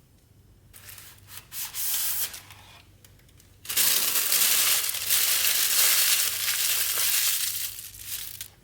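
Gaming mouse packaging being handled and opened: cardboard and plastic rubbing, tearing and crinkling, first briefly, then a louder unbroken stretch of rustling from about a third of the way in until just before the end.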